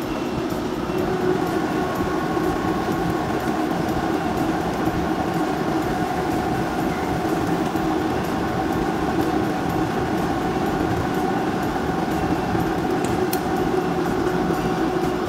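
Rubber roller mill running steadily with an even mechanical drone and a few held humming tones, as a silicone rubber sheet is worked off its steel rollers. A single sharp click near the end.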